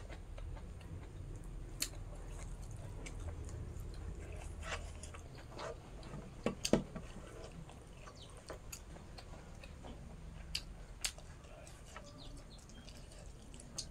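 Quiet eating by hand: scattered small clicks and taps as fingers gather food on a wooden plate and bring it to the mouth, over a steady low hum.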